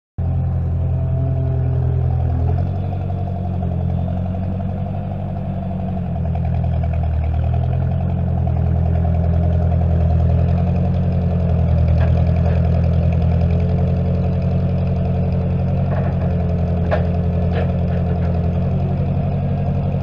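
Loader tractor's engine running steadily, its level dipping a little and then rising again partway through. A few sharp metal clanks come in the second half.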